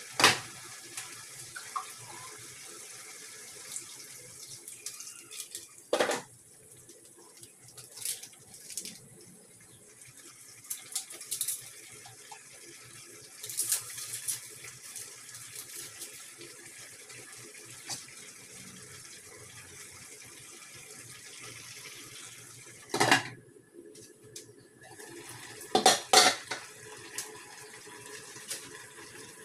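Food sizzling steadily in pots on a stovetop, broken by a few sharp clatters of glass pot lids and metal pots being lifted and set down, loudest near the start and twice near the end.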